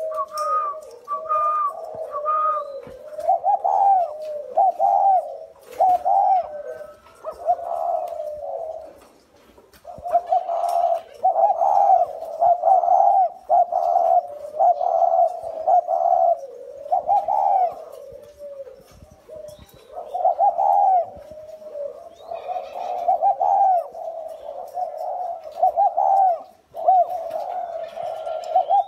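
Spotted doves cooing in runs of short, repeated low notes, with brief lulls about 9, 19 and 27 seconds in.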